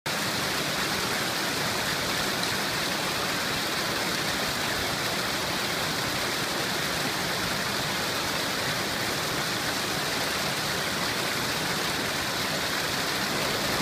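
River water rushing over a rock ledge and shallow rapids: a steady, even rush of whitewater with no breaks.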